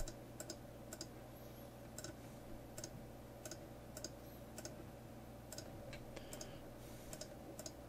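Faint computer mouse clicks, scattered about one or two a second, over a low steady hum.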